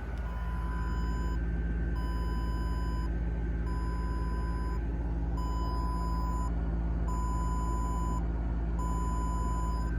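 Eluktronics laptop beeping loudly: a steady single-pitch beep about a second long, repeating evenly six times with short gaps between, over a steady low hum.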